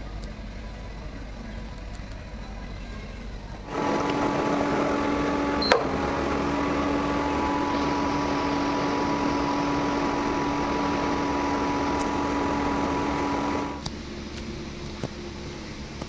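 Induction cooktop running: a steady electrical hum with a fan, with milk tea boiling in a steel saucepan on it. The hum starts about four seconds in, has one sharp click soon after, and cuts off suddenly about ten seconds later, leaving a low background rumble.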